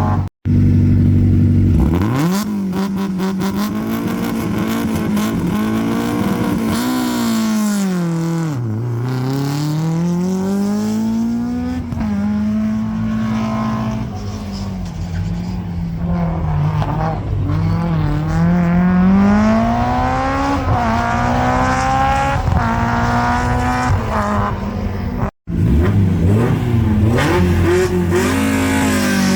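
Historic rally car engine revved hard, its pitch climbing and falling again and again as it is blipped and held high. The sound cuts out briefly twice.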